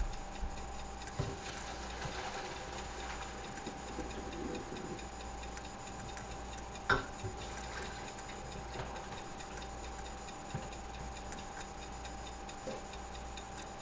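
Faint steady ticking over a steady electrical hum, with one sharp clack about seven seconds in.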